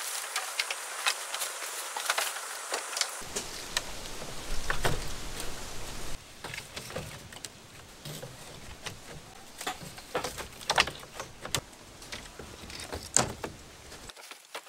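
Bamboo poles knocking and clacking against each other and against the bamboo hull as they are handled and fitted, with scraping and rustling between the irregular knocks.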